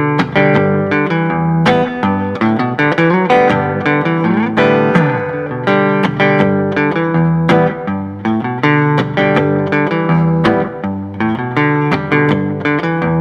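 Blues-rock song's instrumental guitar intro: plucked guitar notes and chords over bass, with a bending, sliding phrase about four seconds in. No singing yet.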